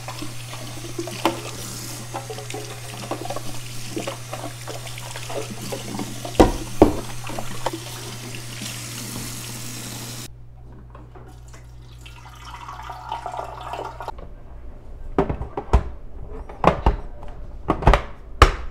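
Kitchen faucet running into a sink while a clear plastic coffee-maker water tank is rinsed under it, with two knocks of the plastic about six to seven seconds in. The water cuts off about ten seconds in. Near the end come several sharp plastic clicks and knocks as the tank is handled and fitted onto the brewer.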